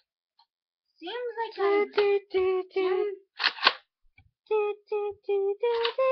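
A child singing a wordless tune in short, repeated held notes, starting about a second in.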